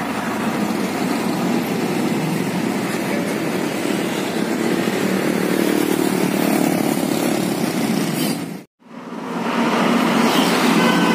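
Road traffic noise as heavy diesel trucks drive past, a steady low drone of engines and tyres. It cuts off suddenly for a moment near the end, then swells back up as another truck passes.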